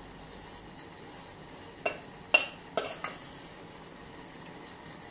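A metal spoon knocking against a cooking pan while stirring diced papaya in a beetroot sugar syrup: four sharp clinks close together near the middle, the second the loudest, over a faint steady hiss.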